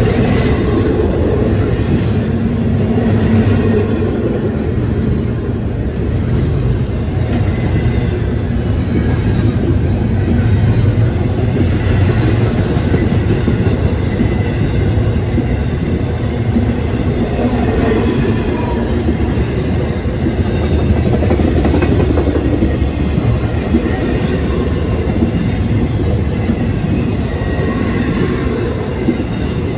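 Double-stack intermodal freight train's well cars rolling past, with a steady noise of steel wheels on the rails.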